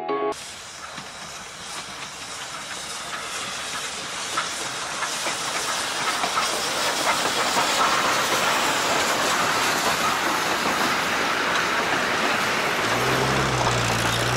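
Steam locomotive Rx207 and its wooden passenger carriages rolling past close by: a steady hiss with wheel noise on the rails, growing louder over the first several seconds. A low hum joins near the end as the carriages go by.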